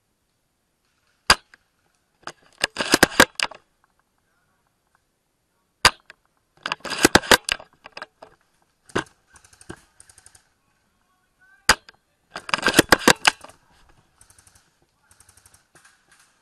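Suppressed Tokyo Marui VSR-10 G-Spec spring-powered bolt-action airsoft sniper rifle fired three times, about five seconds apart; each sharp shot is followed a second later by a rattle of clicks as the bolt is worked to recock it.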